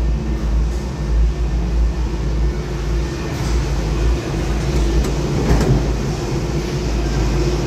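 Steady mechanical rumble and hum of a cable car running through its station, heard from inside the gondola cabin, with a brief louder rattle about five and a half seconds in.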